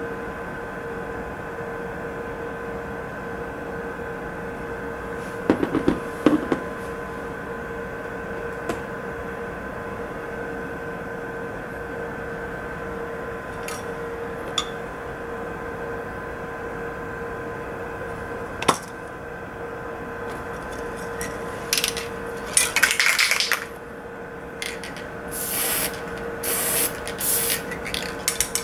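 Small metallic clicks of Glock 43 pistol parts being handled, a cluster about six seconds in and one more past halfway. Near the end come several short hisses of an aerosol gun cleaner being sprayed, the longest about a second and a half. A steady electrical hum runs underneath.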